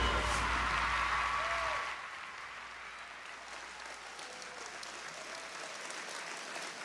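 Audience applauding. Over the first two seconds the tail of a song's music is still heard, then the level drops and the applause continues more quietly.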